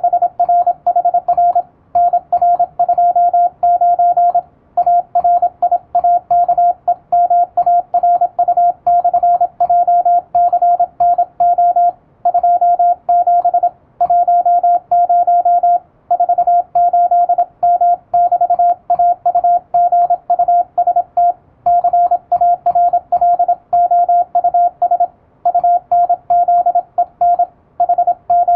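Morse code sent at high speed with an electronic keyer: a single steady mid-pitched beep keyed rapidly on and off in dots and dashes, with brief pauses every couple of seconds between groups of letters.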